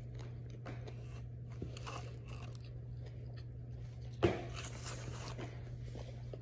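A person chewing a breaded homestyle chicken sandwich close to the microphone, with soft wet mouth noises and one louder crunchy bite about four seconds in. A steady low hum runs underneath.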